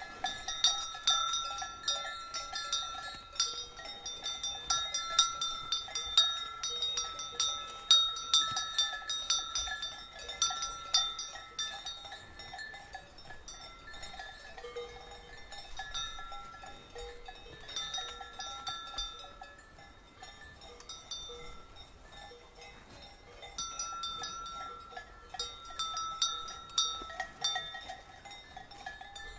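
Bells on the collars of grazing cows clanking irregularly, in clusters of quick strikes that ring on after each hit. The clanking is quieter and sparser for a stretch in the middle.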